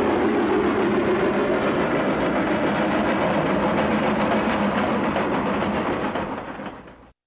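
Steam locomotive running, a steady mix of steam and rail noise that fades out about six seconds in and stops just before the end.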